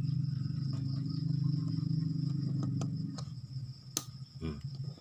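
LVDS ribbon-cable connector on an LED TV panel clicking once, sharply, about four seconds in as the cable's connector is pressed home and seats. Before it, a steady low hum runs for about three seconds, with a steady high thin tone in the background throughout.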